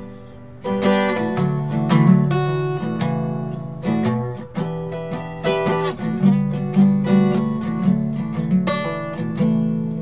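Acoustic guitar strummed in chords, with the strings ringing between strokes. A brief lull, then the strumming picks up just under a second in.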